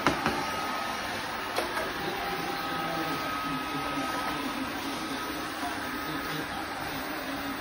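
Robot vacuum cleaner running: a steady motor and brush hum with a thin constant whine, and a few faint clicks.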